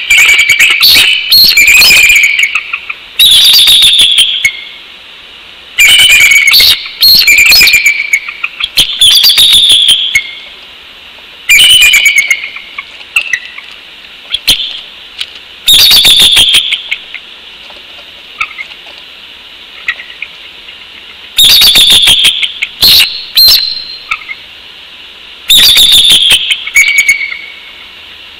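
Bald eagle calling: loud bouts of high, piping chatter, about a dozen in a row, with pauses of one to a few seconds between them and a longer pause in the middle.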